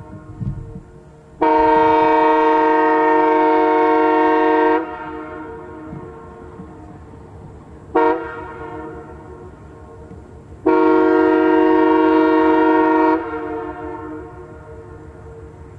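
Locomotive air horn blown three times: a long blast of about three seconds, a very short toot, then another blast of about two and a half seconds. Each blast cuts off sharply and leaves an echo.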